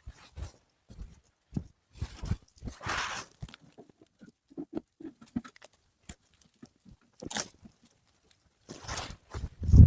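Irregular crunches, knocks and scrapes, with one longer scrape about three seconds in and a heavier thump near the end.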